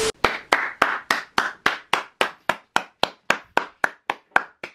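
A person clapping in a steady rhythm, about three to four claps a second.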